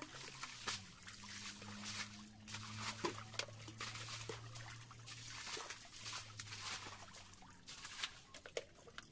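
Muddy ditch water splashing and sloshing as buckets are scooped through it and the water is thrown out, in repeated irregular splashes. A faint low hum runs underneath for most of the time.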